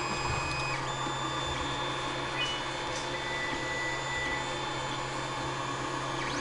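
FDM 3D printer running a print: its stepper motors whine in short tones that keep changing pitch, over a steady low hum.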